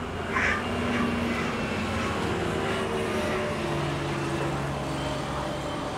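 Steady background traffic noise: vehicle engines droning, with a low engine note that holds through the second half.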